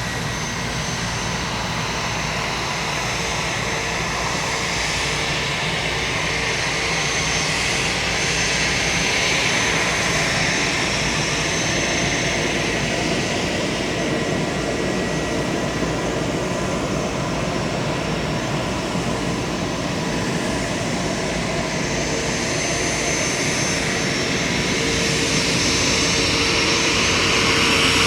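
Bombardier Challenger 350 business jet's two turbofan engines running, a steady whine over a continuous rush, growing louder near the end.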